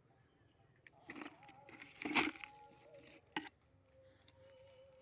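Handling noises of a soil-covered wild turmeric rhizome held in the hand over a plastic bucket: soft rustling with a louder knock about two seconds in and a sharp click about three and a half seconds in.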